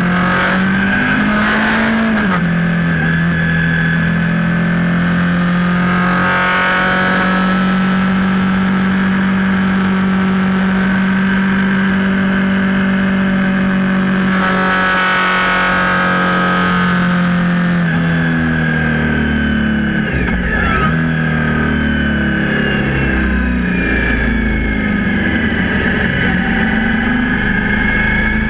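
Suzuki V-Strom 1000's V-twin engine running hard at track pace. Its note holds steady for long stretches and changes pitch near the start and again about two-thirds through as the rider shifts and slows for corners. Wind rushes over the fairing-mounted microphone and swells loudly twice.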